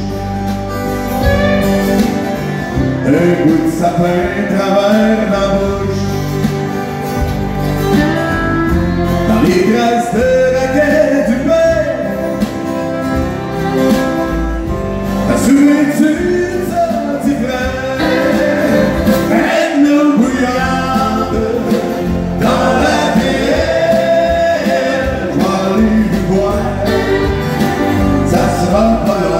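A man singing a country song live, accompanied by strummed acoustic guitars.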